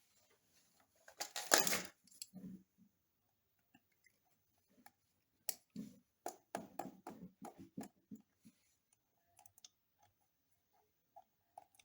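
Scattered small clicks, taps and scrapes from handling the wall socket's wiring and terminals, with a brief rustle about a second and a half in and a run of sharper clicks in the middle.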